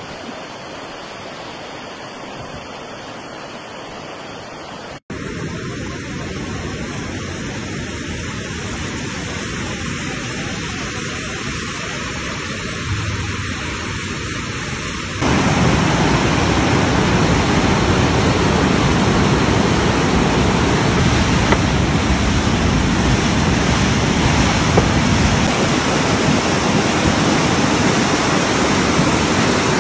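Muddy floodwater rushing in a steady, noisy torrent. The loudness jumps up sharply about five seconds in and again about halfway through, the last stretch loudest and deepest.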